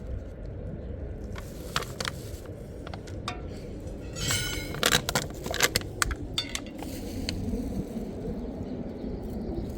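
Kitchenware clinking and knocking: scattered sharp clicks, with a quick run of clinks about four and a half seconds in and the loudest knocks soon after, over a steady low background noise.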